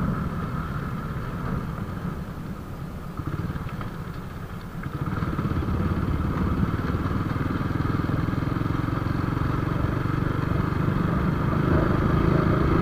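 Motorcycle engine running while being ridden. It eases off for a few seconds, then picks up again about five seconds in, and its note rises slowly near the end.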